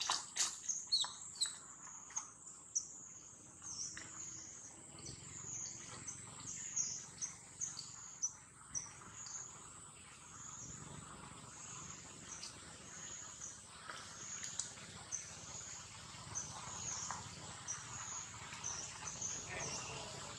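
High-pitched chirping in the forest trees, pulsing evenly, with a quick run of sharper chirps in the first second or two.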